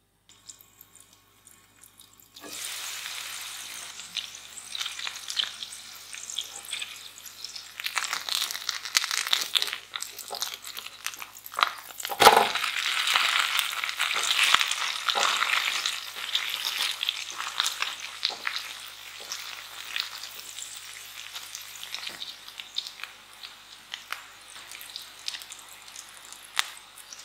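Shredded potato and egg frying in oil in a non-stick pan: a steady sizzle full of crackles. It is faint for the first two seconds, then grows louder toward the middle and eases off near the end. A single sharp knock sounds near the middle.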